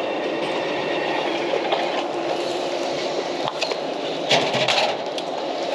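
Food vending machine dispensing a boxed two-serving soba order. Its mechanism runs with a steady hum for a couple of seconds, then clicks and clunks about four seconds in as the package arrives and the delivery flap is opened.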